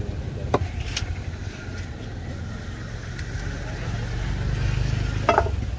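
Low, steady rumble of sea wind on the microphone, swelling about four seconds in, with a few sharp knocks of a large knife against a tuna on a wooden chopping block.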